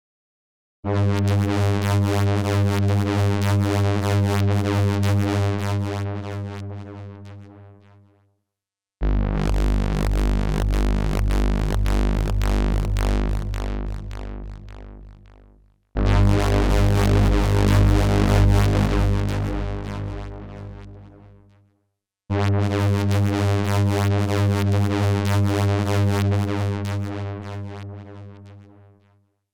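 Synthesizer sounding four separate low, buzzy sustained tones, each starting abruptly, holding for about six or seven seconds with a slight rapid pulse, then fading away; the second and third sit lower than the others. These are synth sound-effect layers for a recreated Gundam mobile suit start-up sound.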